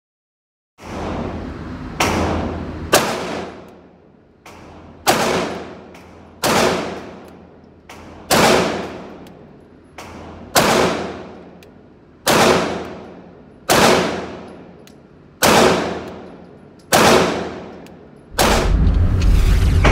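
Ten single shots from a Walther PPQ Q5 Match 9mm pistol, spaced about one to two seconds apart, each ringing out with a long echo in an indoor range. Loud music comes in near the end.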